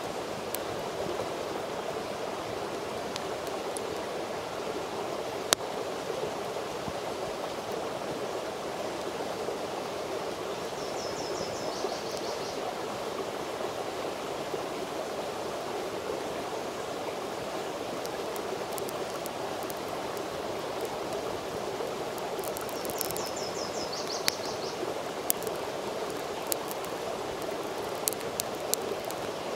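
Small wood campfire crackling, with a single sharp pop about five seconds in and a run of pops near the end, over a steady rushing noise.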